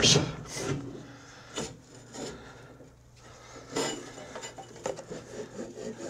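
Irregular scraping, rubbing and knocking of a riding mower's steel cutting deck and its parts being worked by hand, with the loudest scrapes near the start and about four seconds in.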